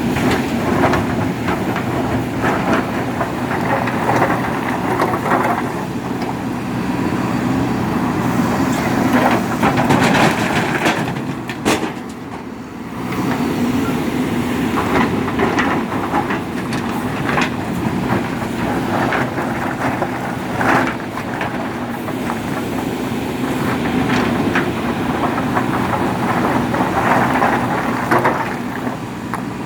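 JCB 3DX Super backhoe loader's diesel engine running under load, with stones clattering and knocking repeatedly as they are scooped and dropped into a dump truck.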